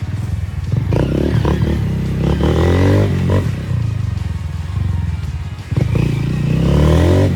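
Honda CG 160 Fan's single-cylinder engine running through a loud Fortuna aftermarket exhaust on the move, rising and falling with the throttle and pushed up hard about a second in and again near six seconds.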